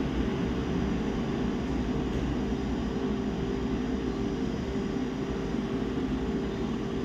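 Steady background hum and rumble with a faint held tone, unchanging throughout.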